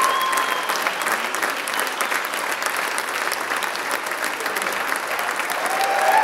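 Theatre audience applauding steadily, a dense clapping. Brief cheers rise above it at the start and again near the end.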